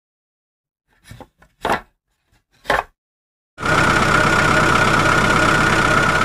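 Three short knocks, then from about three and a half seconds in a loud, steady engine running sound with a constant whine.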